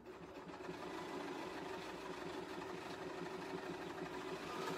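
BERNINA sewing machine running steadily, stitching through quilt layers with a fast, even needle rhythm.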